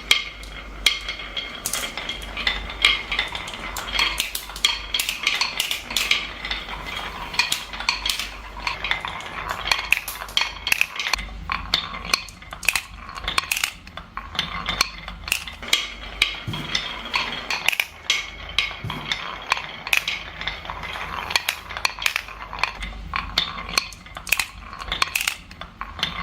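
Many marbles rolling and clattering down a marble run: a dense, unbroken stream of sharp clicks as the marbles strike the track and each other, over a low rolling rumble.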